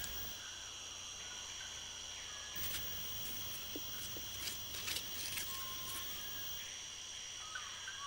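Steady chorus of forest insects, a high-pitched trilling drone, with a few faint short chirps and soft clicks scattered over it.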